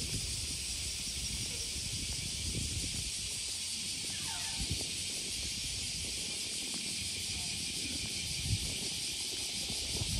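A steady, high-pitched hissing drone of cicadas in summer, with low rumbling and a few soft thumps underneath.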